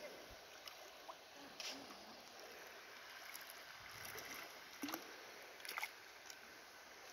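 Faint steady flow of river water, with a few brief clicks about a second and a half in and again around five and six seconds in.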